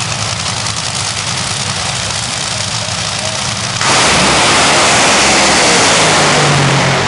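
Two supercharged, nitromethane-fuelled Top Fuel dragster V8s idling at the start line, then launching at full throttle about four seconds in: a sudden, very loud, harsh blast that holds for a few seconds and eases a little near the end as the cars pull away down the track.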